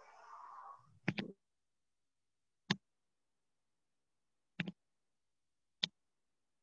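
Four brief sharp clicks or knocks, a second or two apart, with dead silence between them, heard over a video call's noise-gated audio after a short stretch of faint hazy noise.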